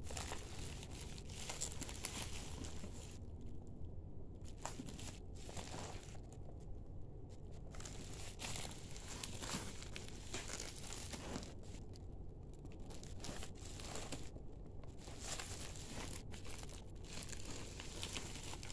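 Hands handling a parcel wrapped in clear plastic stretch film and bubble wrap: faint crinkling of the plastic that comes and goes, with short pauses between handlings.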